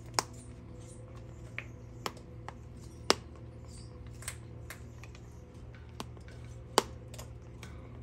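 Scattered sharp clicks and taps at irregular intervals, about a dozen, three of them much louder than the rest, over a steady low hum.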